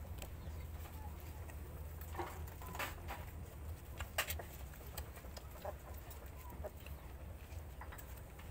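Scattered brief animal calls and a few short sharp clicks over a steady low rumble, the loudest sound about four seconds in.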